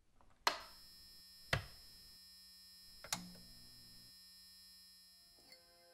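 Three sharp clicks about one and one and a half seconds apart, the first the loudest, each leaving a steady, many-toned electronic hum ringing behind it. A fainter click near the end adds a further set of tones.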